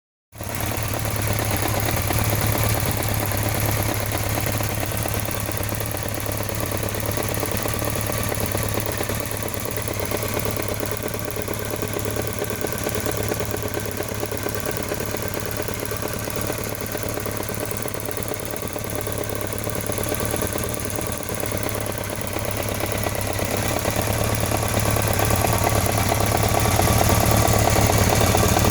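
BMW K1200RS inline-four engine idling with a steady, rapid ticking; the owner can't tell whether the tick comes from the throttle bodies, the cam chain or the valves, and leans toward the throttle bodies. It gets a little louder over the last few seconds.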